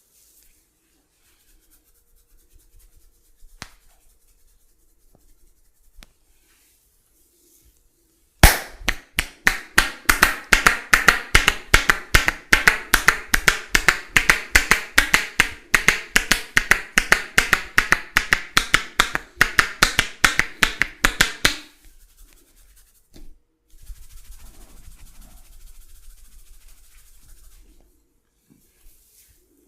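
Rapid, even run of sharp hand slaps on the body, about four to five a second: a barber's percussive tapping massage strokes. The run starts about eight seconds in and stops abruptly some thirteen seconds later.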